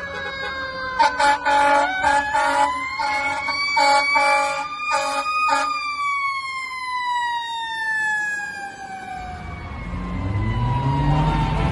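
Fire engine siren wailing, rising over the first five seconds or so and then slowly falling, with a run of short horn blasts over it in the first half. A low engine rumble builds near the end.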